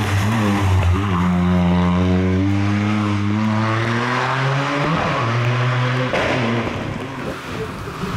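Toyota GR Yaris rally car's turbocharged three-cylinder engine running hard as it drives past, the pitch dropping at gear changes about a second in and again about five seconds in. The engine sound is quieter over the last two seconds.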